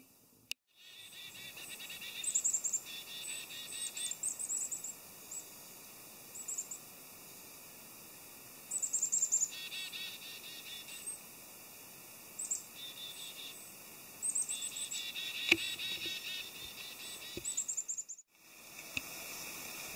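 Small songbirds calling in the treetops: high, thin calls in short falling runs, repeated several times, over softer twittering. A single sharp click comes about two-thirds of the way through.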